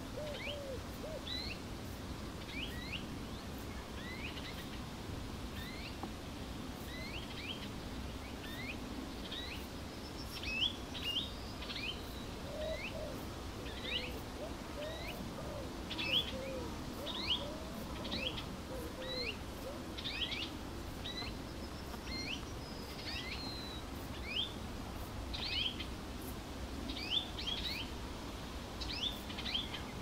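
Birds chirping in the evening: short, high chirps repeating every second or so, busier from about a third of the way in, with lower, softer curved calls now and then beneath them. A steady low rumble runs underneath.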